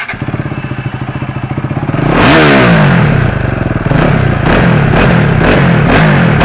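KTM 390 Adventure's single-cylinder engine running through an exhaust with its dB killer removed: idling, revved up and down about two seconds in, then blipped hard about twice a second.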